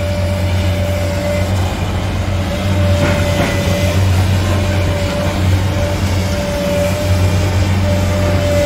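High-reach demolition excavator running: a steady low engine and hydraulic drone with a thin whine that comes and goes over it.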